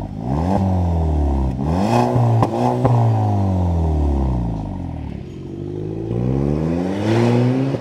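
Volkswagen Tiguan 2.0 turbo four-cylinder heard through its modified exhaust, resonator removed and rear mufflers reworked: revved several times in quick succession, then accelerating away with the pitch climbing. A moderate, low-toned exhaust note tuned to be not too loud.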